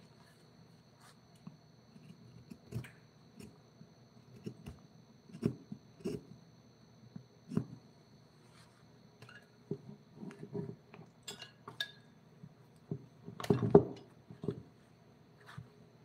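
Scattered light knocks and clicks of small hard objects being handled, with a louder clatter about three-quarters of the way through.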